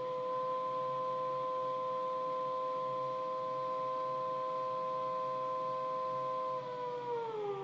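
Kurzweil PC3K7 synthesizer sustaining a steady held chord, its pitch sliding down near the end.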